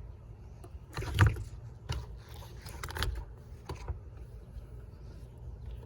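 A few short knocks and scrapes as a car's sunroof glass panel and its frame are worked by hand, the loudest about a second in, over a low steady hum.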